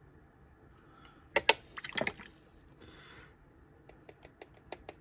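Small handling noises: two sharp taps about a second and a half in, a cluster of clicks, a short watery swish, then a run of light ticks near the end.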